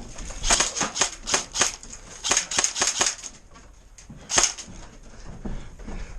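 Airsoft gun firing a rapid, irregular string of single shots, then one more shot about four seconds in.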